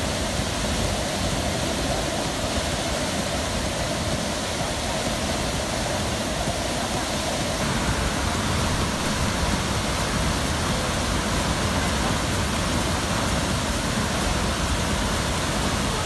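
Steady rush of a tall waterfall pouring into its plunge pool, its tone shifting slightly about seven and a half seconds in.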